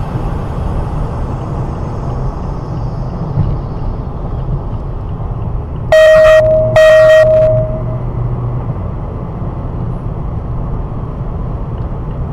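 Steady road and engine rumble of a moving car, with a car horn sounding twice in quick succession about six seconds in, each blast under a second long and much louder than the rumble.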